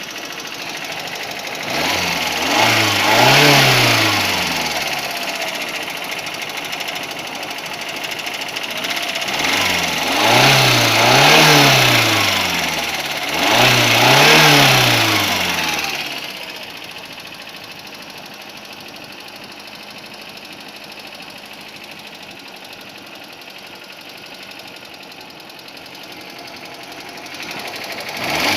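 Lada VAZ-2109's four-cylinder engine revved in short blips, three or four rises and falls, then settling to a steady idle about halfway through and starting to rise again near the end. The engine has a knock whose cause the owner is asking about.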